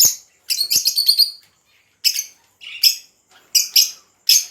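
Lovebirds chirping in a run of short, high-pitched bursts, five or six calls separated by brief gaps.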